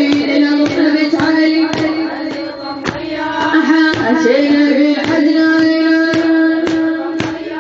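A woman's voice chanting a latmiya lament in long, held, wavering notes over steady rhythmic chest-beating, about two to three strikes a second.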